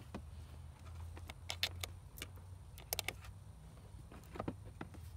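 Small metallic clicks and clinks of a washer, nut and cable lug being handled and fitted onto a deep-cycle battery's terminal stud, in a few quick clusters over a low steady rumble.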